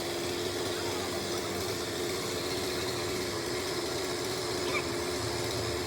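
An engine running steadily at a constant pitch, without revving.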